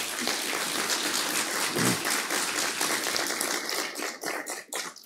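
Audience applauding: dense, even clapping that thins out to a few scattered claps over the last second.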